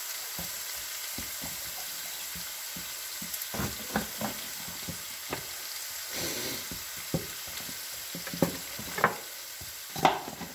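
Diced bacon sizzling steadily in a frying pan, with the short knocks of a kitchen knife cutting a red capsicum on a wooden chopping board; the sharpest knife strikes come near the end.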